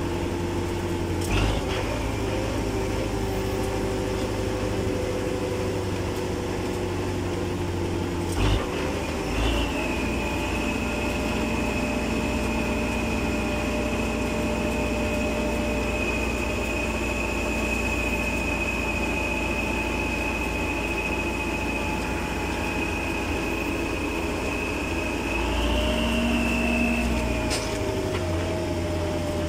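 Old tractor's engine running steadily under load, towing a trailer brim-full of earth, heard from the driver's seat. A high steady whine runs over much of it, with a few short knocks and rattles.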